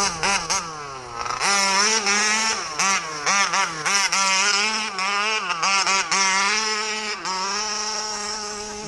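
Small two-stroke petrol engine of a large-scale RC car being driven hard, revving up and down over and over, its pitch rising and falling every second or so.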